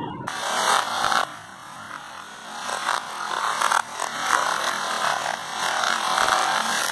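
Small cardboard matchboxes clattering and tumbling against each other and the board as a stacked matchbox house collapses: a dense, crisp rattle that starts suddenly just after the start and swells and eases in several waves.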